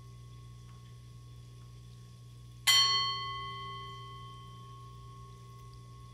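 A handheld singing bowl is struck once, about two and a half seconds in, and rings with several clear tones that fade slowly. A faint ring from an earlier strike hangs on before it.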